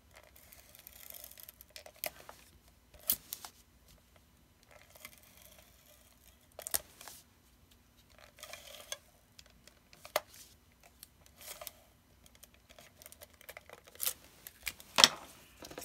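Handheld adhesive tape runner pulled along the edges of a cardstock panel in several short strokes, each a brief dry rasp as the tape lays down. Sharp taps and clicks of the card and dispenser being handled come in between, the loudest near the end.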